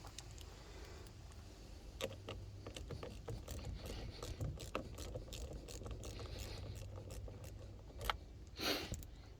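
Scattered light clicks and metallic knocks of hand tools working a part off a VW T25 van, over a steady low hum, with a short louder scraping rustle near the end.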